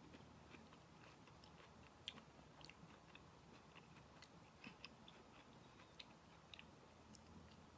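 Faint chewing of a mouthful of tomato, with scattered soft mouth clicks over a faint low hum.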